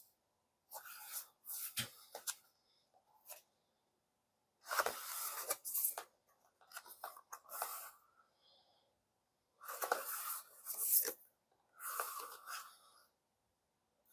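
Discs slid out of the cardboard sleeves of a book-style Blu-ray set and its thick card pages turned: a series of short scraping, rustling bursts with silent gaps between.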